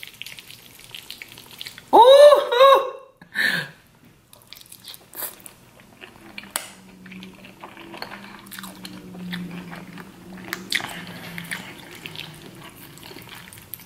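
Close-up mouth sounds of a man eating creamy fettuccine alfredo: soft wet chewing with scattered small clicks. About two seconds in there is a loud, brief pitched vocal sound, and a low steady closed-mouth hum runs under the chewing in the later part.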